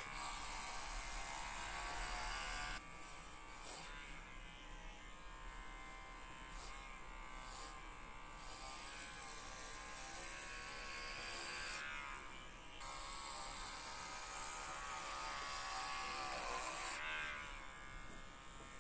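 Electric pet hair clipper buzzing steadily as it shears a small dog's long white coat. Its level steps down and back up a few times as it works through the fur.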